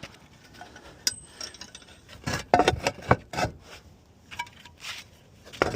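Roof tiles knocking and clinking against each other as they are set back into place on the roof: a sharp click about a second in, a cluster of knocks a little past the middle, and a few more near the end.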